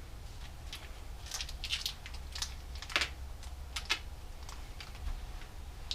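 Bicycle chain parts being handled: scattered light clicks and brief rustles, with a sharper click about three seconds in and another just before four.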